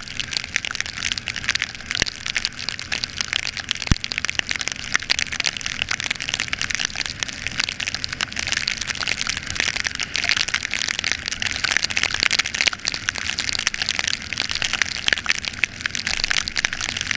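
Heavy rain pelting down, a dense crackling patter that runs steadily, with a low steady hum beneath it and a couple of sharp clicks in the first few seconds.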